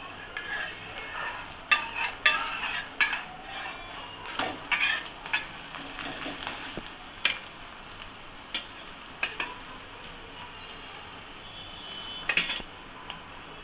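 Metal utensil scraping and clinking on a dosa griddle in irregular sharp strokes, over a faint sizzle of the dosa cooking.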